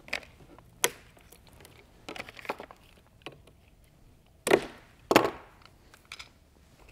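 Metal tubing clamps being unclipped and pulled off plastic resin-infusion tubing: a string of sharp clicks and snaps at uneven intervals, the loudest two a little past the middle.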